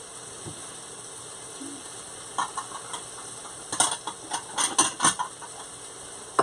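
Onions and bell peppers sizzling steadily in a frying pan. About two and a half to five seconds in, a run of sharp clicks and clatters as things are handled in a wooden overhead cabinet.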